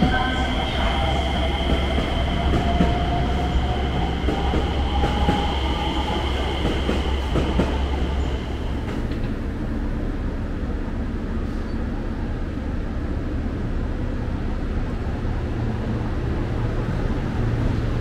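Electric trains at a station platform. First an electric commuter train pulls out, its motors giving a slowly rising whine over a steady rumble. Then, after an abrupt change about halfway through, a JR Shikoku 5000 series Marine Liner electric train runs in alongside the platform with a lower, steady hum and rumble.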